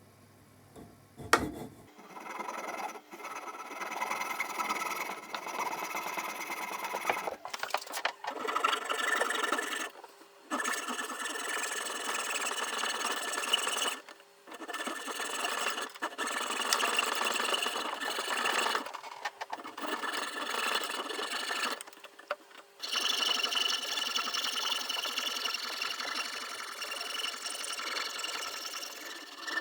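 Saw cutting through the wooden wedge that sticks out of the top of an axe head's eye, in long runs of quick strokes with short pauses between them.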